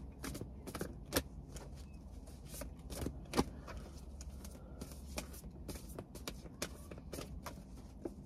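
Tarot cards being shuffled and handled: scattered soft clicks and taps at irregular intervals, with louder snaps about a second in and again around three and a half seconds.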